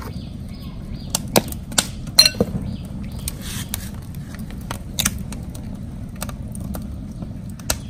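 Scattered light clicks and taps of duck eggshells being cracked and handled while the yolks are separated by hand, over a steady low background noise.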